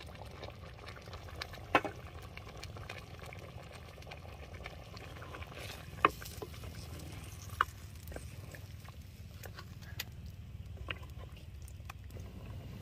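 Chicken gravy cooking in a pot on the stove, with a crackly patter over a low steady rumble. Three sharp clicks stand out: about two seconds in, about six seconds in, and once more soon after.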